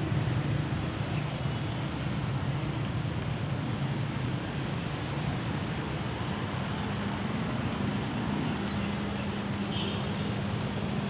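Steady traffic noise of vehicle engines running, with a low steady engine hum setting in about halfway through.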